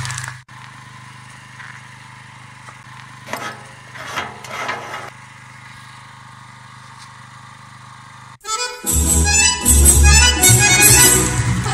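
A low steady hum with a few faint brief sounds about three to five seconds in. Then music with a strong beat starts suddenly about eight and a half seconds in and is the loudest thing.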